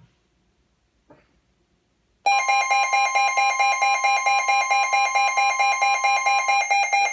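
Emergency Alert System alert tones over NOAA Weather Radio come on suddenly about two seconds in: a loud electronic alarm of several steady pitched tones, pulsing rapidly and evenly. One of the tones drops out near the end.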